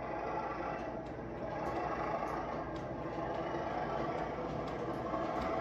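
Heljan O gauge Class 37 model locomotive running towards the tunnel mouth, a steady engine-like drone with faint scattered clicks, growing slightly louder as it approaches.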